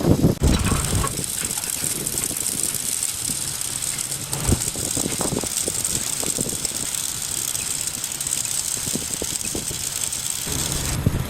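Workshop machinery running with a steady high hiss and scattered light knocks and clanks; the hiss starts just after the opening and stops abruptly near the end.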